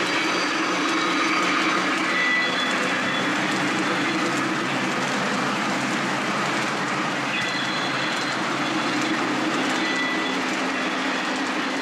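Lionel Polar Express O-gauge model train, a steam locomotive and its passenger cars, rolling past on three-rail track: a steady, even rush of wheel and motor noise.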